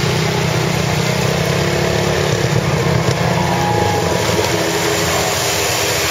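Polaris RZR side-by-side's engine running steadily as it wades hood-deep through muddy water, with water churning around the half-submerged machine.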